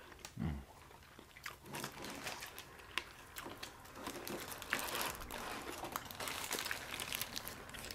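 Paper fast-food wrappers and a paper fry sleeve crinkling and rustling as a sandwich and curly fries are handled, with many small crackles and clicks.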